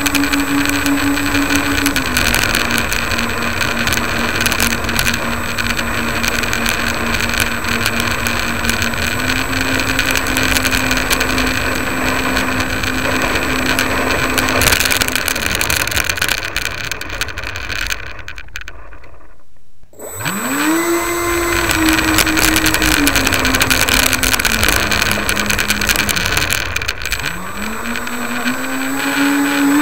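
Motors of a radio-controlled Airbus A380 model in flight, heard from a camera on its tail: a steady whine over rushing air, stepping up and down in pitch with the throttle. About 18 seconds in the sound briefly thins out, then the motors spool up with a quickly rising whine, and rise again near the end.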